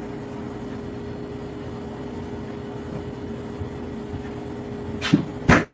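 A steady mechanical hum with a constant low tone, like a motor or vehicle running, broken near the end by two short loud sounds about half a second apart.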